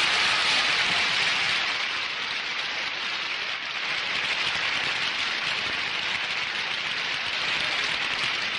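Audience applauding: dense, steady clapping from many hands, dipping slightly and swelling again about halfway through.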